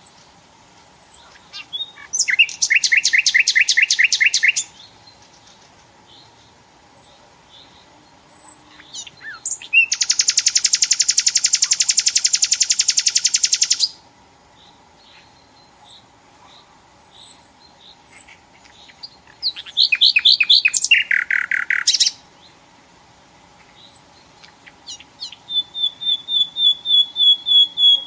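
Nightingale singing: loud phrases of rapid repeated notes and trills, each a couple of seconds long, separated by pauses of a few seconds, one of them a long buzzing trill of about four seconds. Thin high single notes come between the phrases, and a phrase of evenly repeated notes starts near the end.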